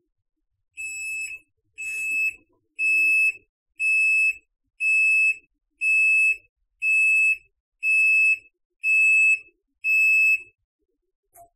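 Electronic buzzer of a Tangarus portable washing machine beeping ten times, about once a second, each beep a steady high tone of about half a second.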